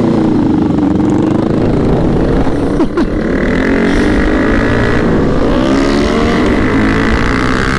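Sport motorcycle engine running under acceleration, its pitch climbing steadily over the last few seconds, with a brief dip in level about three seconds in.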